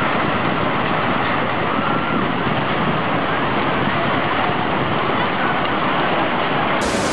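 Tsunami floodwater rushing, a loud steady noise.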